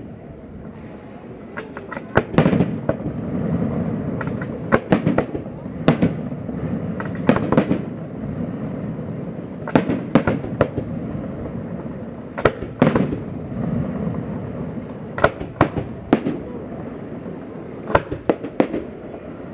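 Aerial firework shells bursting in a fast series of sharp bangs, often two or three close together every couple of seconds, with a rolling low rumble carrying on between them.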